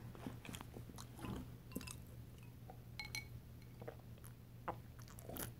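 Faint close-up chewing and mouth sounds: a person working through a last mouthful of food, with small wet clicks scattered throughout. Near the end she sips from a glass.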